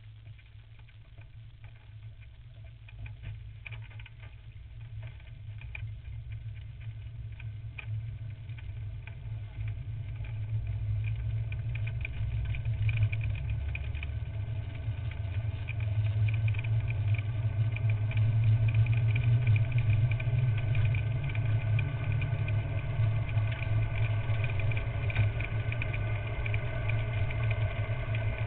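Onboard sound of an engineless carrilana gravity cart rolling downhill on asphalt: wind rushing over the cart and its tyres running on the road, with light rattles, growing steadily louder as the cart gathers speed.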